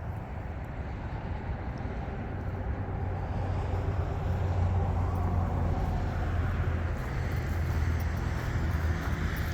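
A road vehicle driving past, its engine and tyre noise swelling to a peak about halfway through and then easing off.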